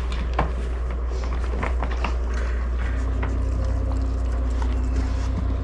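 A steady low hum with scattered light clicks and knocks as a dog steps into a wire crate on a wooden floor. A faint steady tone joins in about halfway through.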